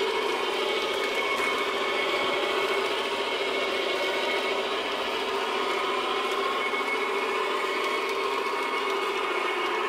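Large-scale model diesel locomotive running along garden railway track, hauling a long freight train: a steady mechanical hum.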